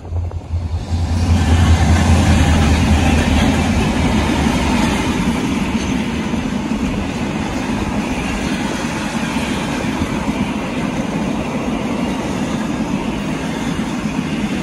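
Train passing close by: a diesel locomotive's low engine hum for the first few seconds, then the steady rumble of carriage wheels rolling over the rails.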